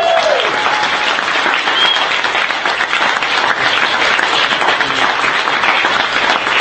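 Audience applauding steadily, with one cheering voice fading out at the very start.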